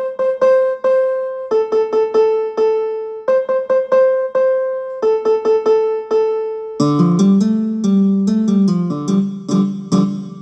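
Ringtone melody in a keyboard sound: a short phrase of quick notes repeating about every second and a half, with a lower, fuller part joining about seven seconds in.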